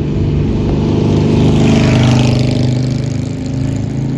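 A motor vehicle's engine driving past on the street, growing louder to a peak about two seconds in and then fading.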